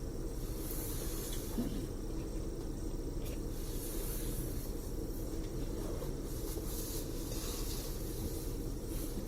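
Cabin noise inside a moving tour coach: a steady low rumble of engine and road, with a few soft hissing swells high up, about a second in, around four seconds and around seven to eight seconds.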